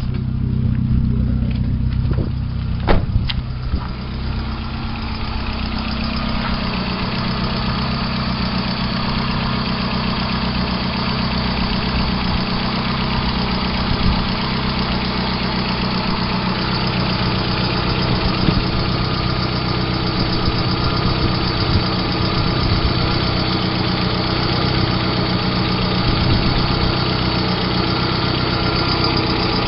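VAZ-2112 16-valve engine running at idle with a tapping knock from the cylinder head, after a few sharp clicks near the start. The owner finds the knock grows as the engine warms while oil pressure falls to about 1 kgf/cm² at hot idle, even after new hydraulic lifters, oil and filter.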